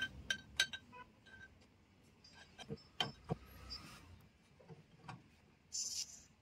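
Scattered light clicks and small clinks, a few of them ringing briefly, with a short hiss about six seconds in.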